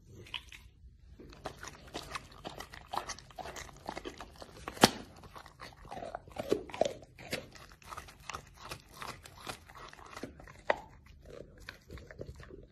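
A Rottweiler chewing and biting into a slab of raw meat: irregular crunching and smacking, with one sharp, loud crunch near five seconds in.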